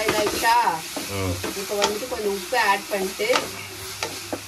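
Food sizzling as it fries in a pan, with a spoon stirring and scraping through it and a few short pitched squeaks and clicks.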